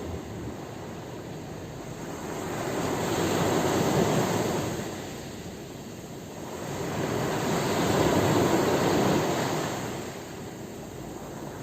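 Sea waves washing onto the shore: a steady rush of surf that swells and falls back twice, peaking about four seconds in and again near eight seconds.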